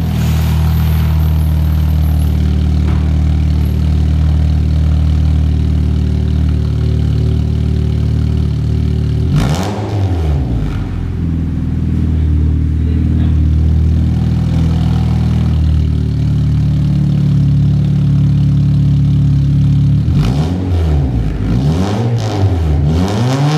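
Honda Stream RSZ engine running through a custom stainless steel downpipe and full stainless exhaust. It idles steadily, is blipped once about ten seconds in, and then takes a quick series of throttle blips near the end.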